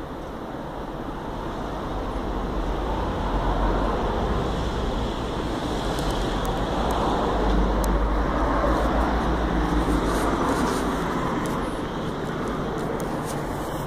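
Road traffic going by, a steady rush with a low rumble that swells over the first few seconds and eases off near the end, with a few light clicks in between.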